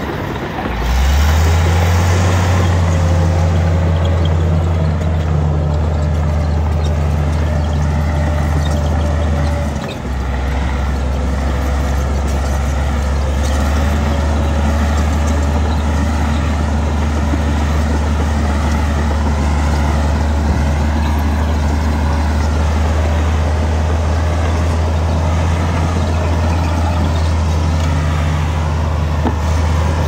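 Heavy diesel earthmoving machinery running: a steady low engine drone with a faint wavering whine above it, dipping briefly about a second in and again around ten seconds.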